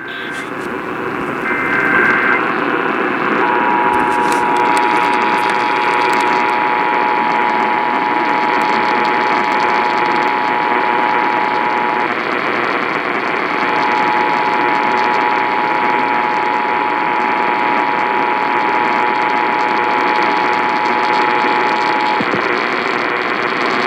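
Emergency Alert System tones received through heavy radio static: a short data burst about two seconds in, then the two-tone attention signal. The attention signal breaks off briefly in the middle and resumes for about another eight seconds. These tones open a required monthly test of the Emergency Alert System.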